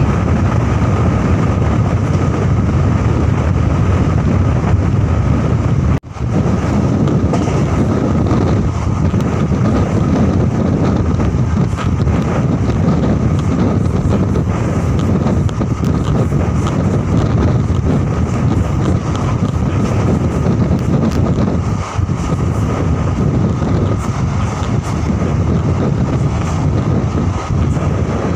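Passenger train running at speed, heard from an open door: a steady low rumble of the wheels on the rails mixed with heavy wind buffeting the microphone, and a faint steady whine. The sound drops out for a split second about six seconds in.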